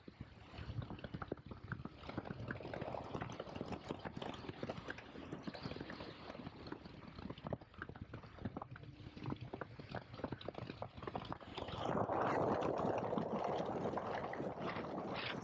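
KTM 1290 Super Adventure S being ridden, its 1301 cc V-twin heard on board with uneven engine pulses under road and wind noise. The sound grows louder about twelve seconds in.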